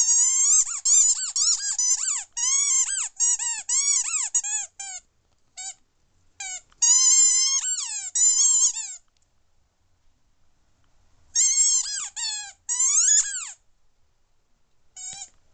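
Squeaky toy squeaking in quick runs of high, rising-and-falling squeaks as a dog chews it, with a pause of a couple of seconds about nine seconds in and a last single squeak near the end.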